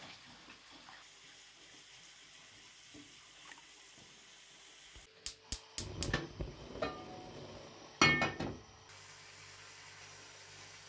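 Faint running tap water, then a gas stove burner being lit: a few sharp clicks and a short whoosh as the flame catches. About eight seconds in, a loud metal clank with a brief ring as the frying pan is set on the grate, followed by a low steady hum from the burner.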